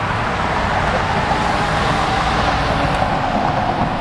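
Steady, unbroken rumble of vehicle engine noise with a hiss over it and no distinct knocks or horn.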